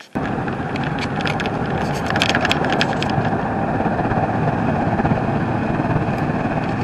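Steady road and engine noise inside a moving vehicle's cabin, with a cluster of short clicks and rustles between about one and three seconds in.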